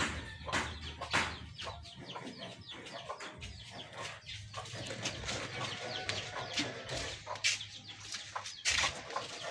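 Chickens clucking, mixed with scattered short clicks and knocks.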